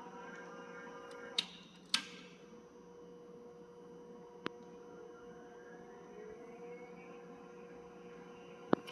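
Electric drive motor of a welding turning roller humming steadily, its pitch gliding up and down slowly as the rollers change speed. A few sharp clicks, the loudest about a second and a half in, just after, and near the end.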